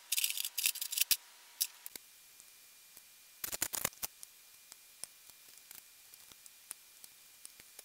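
Snap-ring pliers clicking and rattling as they work the retaining clip off the milling head's spindle shaft. About three and a half seconds in comes a second short burst of metal clatter as tools are handled on the workbench.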